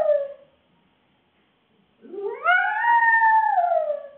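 Shih Tzu poodle cross dog howling: the falling end of one howl, then after a pause of about a second and a half a second long howl that rises, holds steady and falls away near the end.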